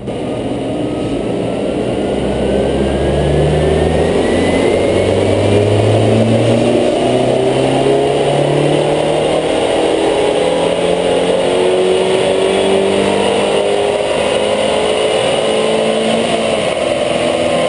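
2008 Audi A4 2.0T FSI turbocharged four-cylinder on a chassis dyno, running a stage 1 tune, making a pull: the engine note climbs steadily in pitch as the revs rise and falls away near the end. A thin high whistle rises alongside it over the first several seconds.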